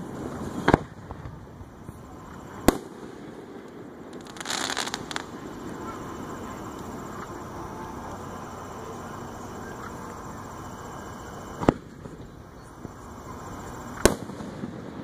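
Aerial firework shells bursting: four sharp bangs, about one, three, twelve and fourteen seconds in, with a short burst of hiss around four and a half seconds in.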